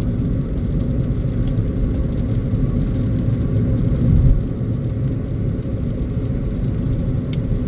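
Road and engine noise inside a moving car's cabin: a steady low rumble that swells briefly about four seconds in.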